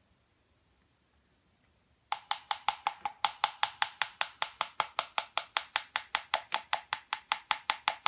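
Plastic spoon tapping rapidly against the rim of a plastic cup to knock Nutella off it, a fast, even run of sharp ticks, about six or seven a second, starting about two seconds in.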